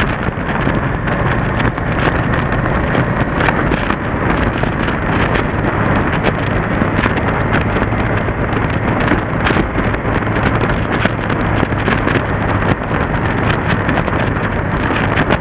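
Wind noise on the microphone of a moving motorcycle, over the steady running of a Yamaha TDM's parallel-twin engine at an even road speed.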